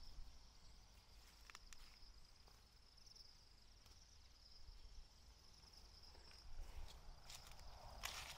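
Faint, steady, high-pitched insect chirring, like crickets, with a few short rustles or steps on the ground; the loudest comes just before the end.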